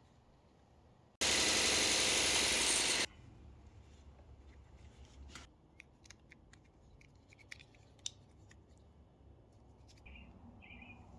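A loud burst of steady hissing noise about a second in, lasting about two seconds and cutting off abruptly, then light clicks and rubbing of hard plastic parts as a waterproof coupling is fitted through a drilled plastic tank cap and its nut threaded on by hand.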